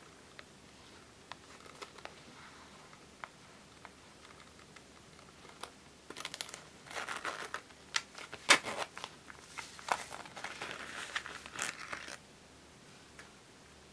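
A pink faux-leather zipper coin purse being handled close up. First a few light taps, then about six seconds of crinkling, scratching and clicking as the purse is squeezed and its zipper worked open.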